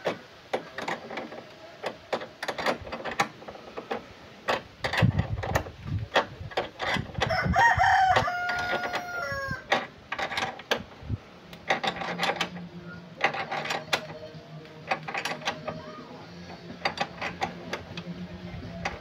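A rooster crowing once, about eight seconds in, over repeated short knocks and taps from hand work on the timber frame. A low steady hum joins about eleven seconds in.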